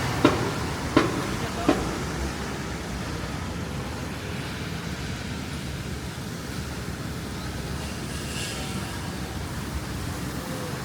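Steady low rumble of a passing train, with a few sharp evenly spaced clacks in the first two seconds that then stop.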